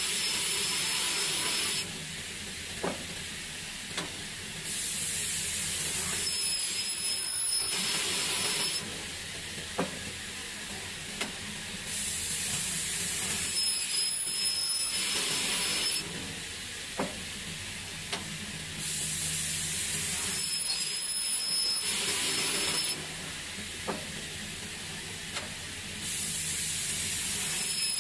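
An automatic CNC saw cutting aluminium corner-connector stock in repeated cycles: a loud hissing cutting sound lasting about four seconds comes roughly every seven seconds. In the quieter gaps between cuts, single sharp clicks are heard as the machine feeds and clamps the stock.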